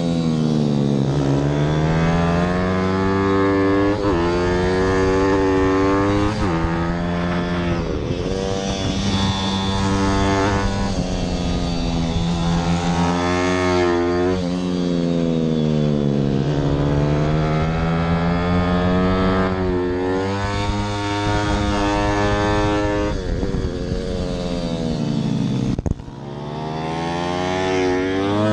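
Single-cylinder engine of a Zongshen-powered 160 cc pit bike at full race throttle, its pitch climbing through each gear and dropping back at every upshift or lift for a corner. About 26 seconds in the throttle snaps shut and the engine note falls away briefly before it revs up again.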